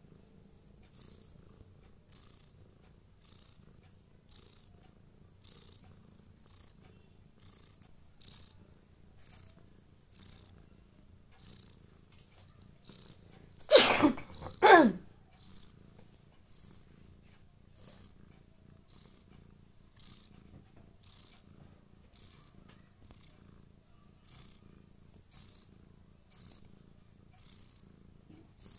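Tabby cat purring steadily while kneading and mouthing a fluffy pillow, with faint regular ticks about one and a half times a second. About halfway through come two loud, brief sounds a second apart, each falling in pitch.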